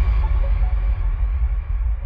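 The tail end of electronic background music: a deep bass rumble with a fading reverb wash on top, slowly dying away.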